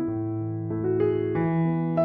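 Background music: a keyboard with a piano-like sound playing a gentle melody over held chords, a new note coming in every few tenths of a second.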